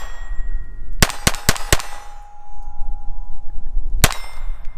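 Taurus TX22 .22 LR pistol firing: four quick shots a little after a second in, then one more near the end. The hits are answered by the lingering ring of steel targets. Wind rumbles on the microphone throughout.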